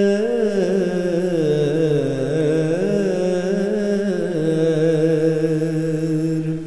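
A solo male voice singing an Urdu naat, drawing one syllable out into a long melismatic run that bends up and down before settling on a held note about four seconds in. No instruments accompany it.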